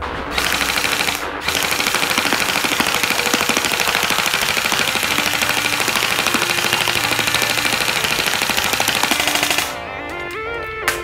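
Classic Army AR004M-2-X M4 carbine airsoft electric gun, run on an 11.1 V lipo, firing long full-auto bursts: a rapid, steady rattle of shots with a brief break about a second in. The firing stops about a second before the end, leaving the background music.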